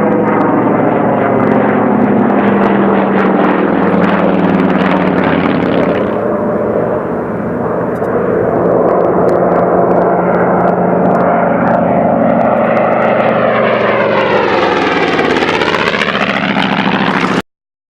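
Propeller airplane engine droning steadily. Over the last few seconds the tone takes on a sweeping, phasing quality, and the recording then cuts off abruptly shortly before the end.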